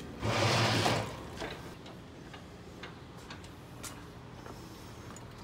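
Hand tools being rummaged through in search of a socket: a brief rattling, scraping burst at the start, then scattered light clicks and taps of metal tools being handled.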